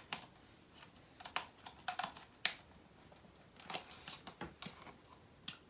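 Plastic bottle of white glue being squeezed and kneaded by hand into a plastic bowl: a faint, irregular run of small clicks and crackles, about a dozen over the few seconds.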